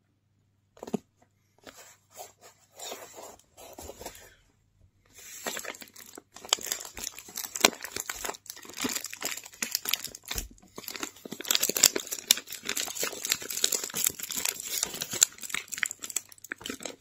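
Crinkling and rustling of a parcel wrapped in brown paper and clear plastic wrap being handled. It comes as scattered rustles at first, then dense, continuous crinkling from about five seconds in, with a low thump around ten seconds in.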